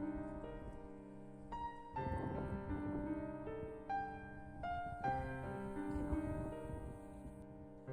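Background piano music, slow held notes and chords.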